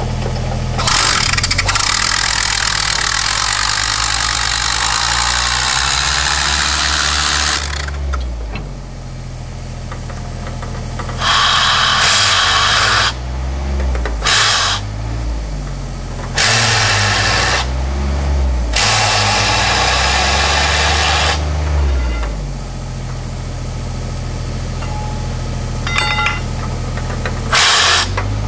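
Compressed air exhausting from an air-powered narrow-gauge mining machine in loud hissing spells, one long and several short, over a steady low engine hum.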